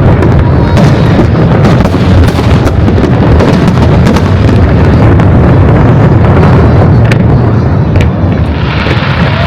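Fireworks shells bursting in dense, overlapping succession, a continuous heavy booming with sharp cracks scattered through it. A hiss joins in near the end.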